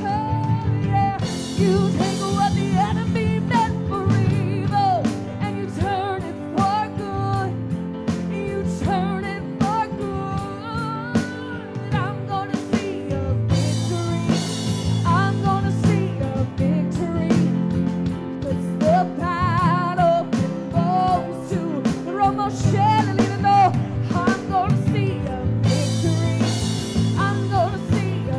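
Live worship band playing a song: a woman's lead vocal over piano, guitar and a drum kit, with cymbal washes that swell at intervals.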